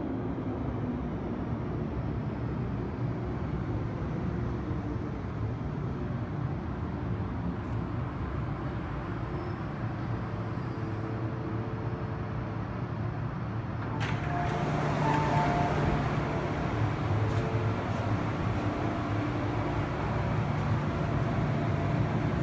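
MTR Island Line M-Train subway train rumbling steadily alongside the platform. About fourteen seconds in, a sudden louder rush of hiss and car noise starts as the doors open, and the sound stays louder from then on.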